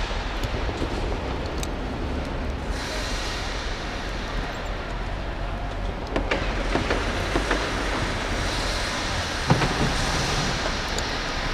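Petrol-powered rope ascender running steadily as it hauls the climber up the rope. A few short clicks come in the second half, and a sharp knock about nine and a half seconds in.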